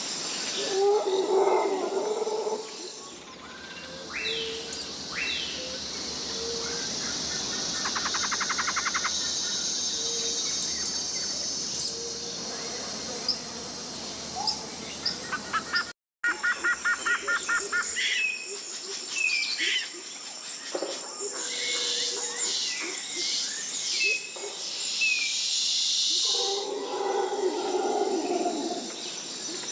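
Tropical rainforest ambience: a steady high insect chorus under many bird chirps, whistles and fast trills. Lower animal calls sound near the start and again near the end. The sound drops out briefly just past the middle, an edit between recordings.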